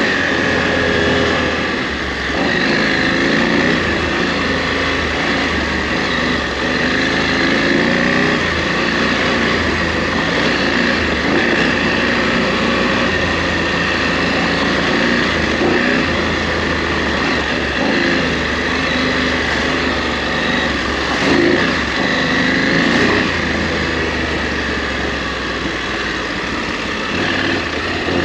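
KTM 890 Adventure R's parallel-twin engine ridden off-road, its revs rising and falling again and again with the throttle.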